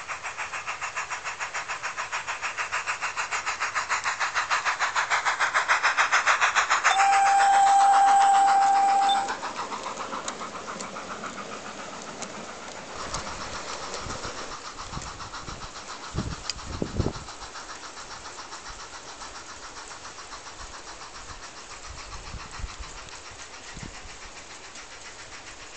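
Garden-railway model steam locomotive running past with a rapid chuffing beat that grows louder as it approaches; a steady whistle sounds for about two seconds, then the sound drops away sharply. The chuffing carries on more quietly with wheel clatter and a few thuds about two-thirds of the way through.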